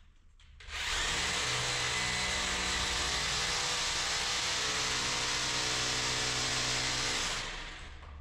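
A power tool's electric motor runs at a steady speed, starting a moment in and cutting off near the end.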